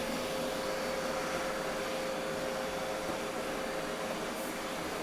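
Roborock S7 MaxV robot vacuum running a vacuum-and-mop pass on turbo suction: a steady, even whir with a constant hum tone.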